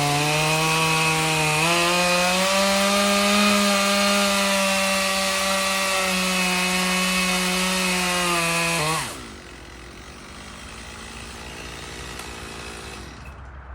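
Chainsaw running at full throttle through wood, its pitch stepping up slightly about two seconds in. About nine seconds in the throttle is released and it drops to a much quieter idle, which dies away near the end.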